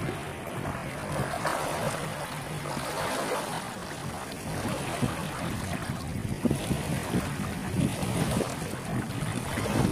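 Small waves lapping and washing over a stony lake shore, a steady rush of water with wind noise on the microphone.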